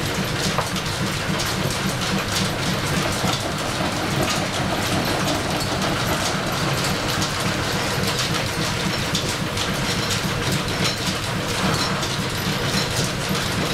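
Belt-driven engine lathe in a line-shaft machine shop running steadily, with a constant mechanical clatter and rapid fine clicking from its gearing and drive.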